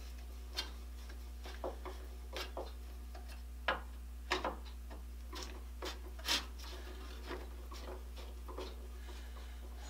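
Screwdriver loosening the saw-nut screws in a handsaw's wooden handle: scattered small clicks, ticks and scrapes of metal on metal and wood, over a low steady hum.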